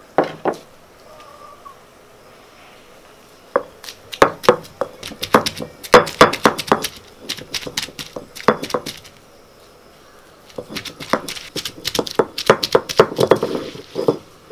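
Heavy stone roller knocking down on a grinding stone as it crushes shallots and green chillies, stone striking stone. There are a couple of knocks at the start, then two long runs of rapid, sharp knocks, the second near the end.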